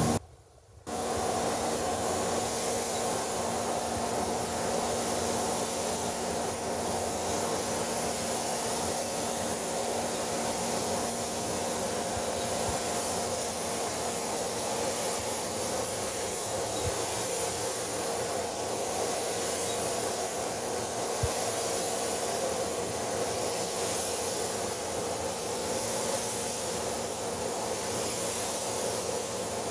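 Compressed-air paint spray gun hissing steadily as white paint is sprayed, starting about a second in, with a steady hum underneath.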